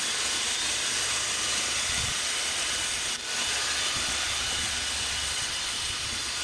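Battery-powered stick edger's spinning blade cutting along a lawn edge: a steady whirring hiss that dips briefly about three seconds in.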